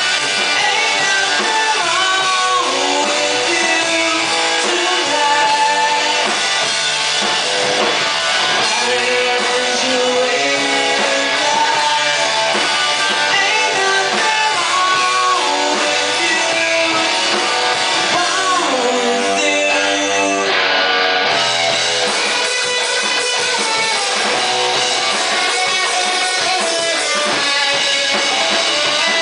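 A live rock band playing loud and without a break: electric guitar, bass guitar and drum kit.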